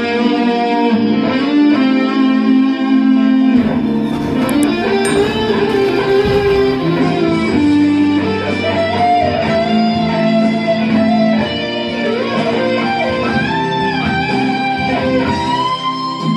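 Les Paul-style electric guitar playing a slow lead melody of sustained, singing notes with bends. It ends on a long held note with vibrato.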